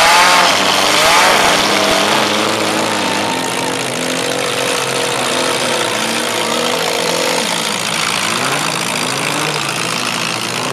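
Several demolition-derby compact cars' engines running and revving together, their pitches rising and falling, loudest in the first second or so.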